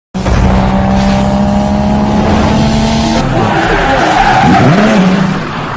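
Intro sound effect of a car engine running and tyres skidding. A steady engine note changes a little past halfway into a gliding, swooping sound, and the whole effect then begins to fade.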